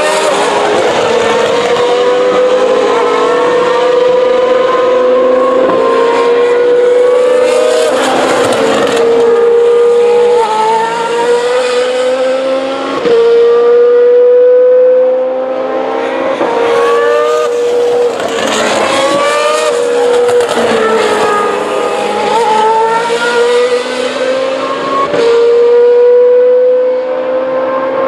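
Formula 2 race car engines, the 2017 cars' naturally aspirated V8s, running at high revs. The engine note repeatedly climbs and then drops back sharply as the cars change gear under acceleration.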